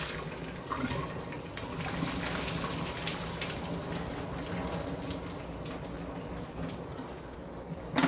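Water pouring out of an electric kettle and splashing into a stainless steel sink, with a few light knocks; the splashing thins out near the end.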